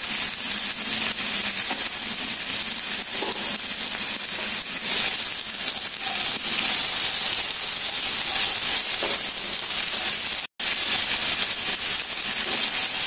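Ginger, garlic and green chili pastes sizzling in hot refined oil in a frying pan, a steady hiss, stirred with a wooden spatula that scrapes faintly now and then. The sound cuts out for a moment about ten and a half seconds in.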